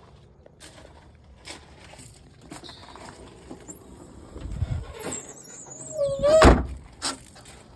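Plastic interior trim being handled and pried at: scattered clicks, a short squeal, and one loud knock about six and a half seconds in.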